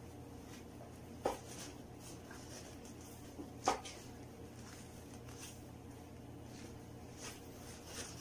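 Faint handling noises of a sneaker being laced and pulled onto a foot, with two short sharp knocks about two and a half seconds apart. A low steady hum runs underneath.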